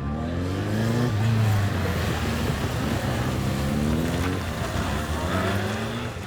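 Police motorcycles' engines revving as they ride the drill, the pitch climbing again and again as the throttles open.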